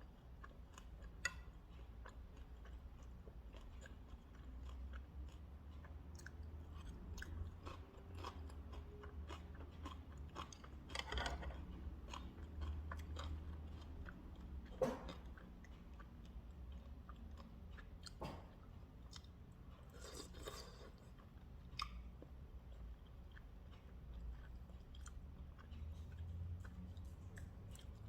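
A person chewing food close to the microphone, with scattered small clicks and crunches over a faint low hum.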